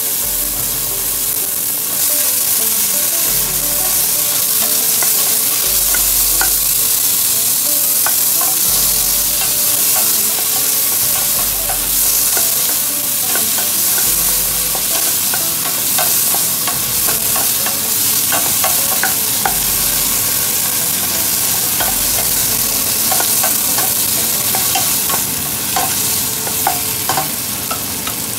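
Onions, garlic, ginger and tomatoes sizzling in oil in a stainless steel pot, with a utensil clicking and scraping against the pot as they are stirred. The hiss is steady throughout, and the clicks come often from a few seconds in.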